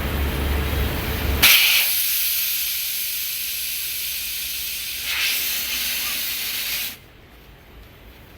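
Compressed air hissing hard from an air hose at a tyre shop: a long blast that starts about a second and a half in, swells again about five seconds in, and cuts off suddenly near seven seconds. A steady low rumble comes just before it.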